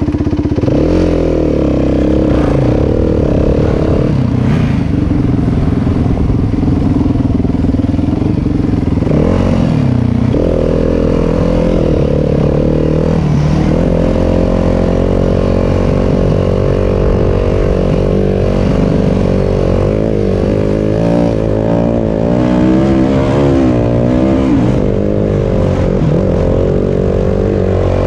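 Yamaha WR250F dirt bike's single-cylinder four-stroke engine ridden on and off the throttle, its pitch rising and falling, with gear changes about 4, 10 and 13 seconds in.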